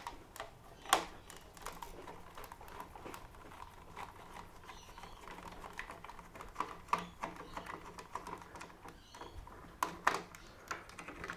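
Small irregular clicks and light taps of a screwdriver backing the last Phillips-head screw out of a plastic lawn mower handle, with plastic parts knocking as they are handled; a sharper knock about a second in and a few more near the end.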